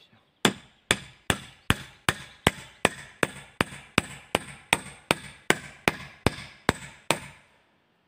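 A 120 mm nail being driven into a wooden log post with the back of an axe: about eighteen sharp, even blows, roughly two and a half a second, stopping about seven seconds in with the head left slightly proud.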